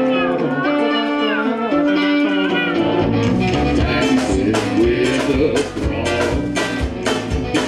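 Live folk band playing: a woman's singing voice over strummed ukulele and acoustic guitar, with drums coming in about three seconds in and a steady beat after that.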